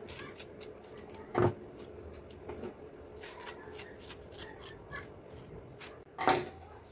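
Kitchen scissors snipping through fresh banana leaf, many short crisp snips with leaf rustling as the leaf is trimmed into a round. Two louder knocks, about a second and a half in and near the end.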